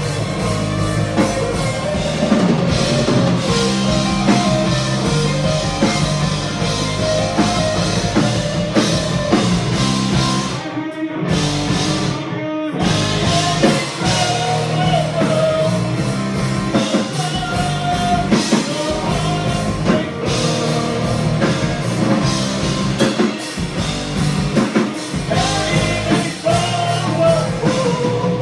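Rock music with a singing voice, drum kit and guitar, loud and continuous, with two short breaks near the middle.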